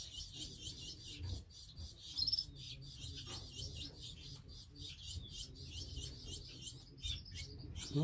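Caged canaries chirping in short, high calls, over faint rubbing and handling noise from fingers working a leg ring onto a young canary.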